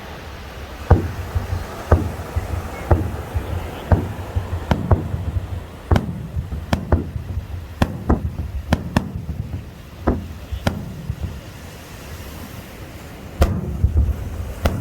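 Aerial fireworks shells bursting in a string of sharp bangs, each trailed by a low rumble. The bangs come about once a second at first, then closer together, stop about ten seconds in, and start again with another burst near the end.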